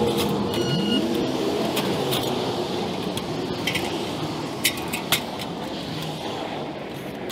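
A motor vehicle going by on the street, its engine pitch dipping in the first second, then a steady rush of traffic. A few sharp metallic clicks and clanks about four to five seconds in, from the aluminium extension ladder being moved.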